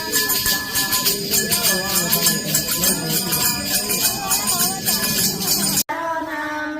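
Music with jingling percussion and singing voices over it. It cuts off abruptly about six seconds in, and a single voice singing takes over.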